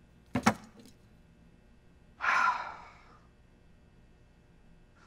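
A quick double click about half a second in, then a loud, breathy gasp from a person about two seconds in, with quiet room tone around them.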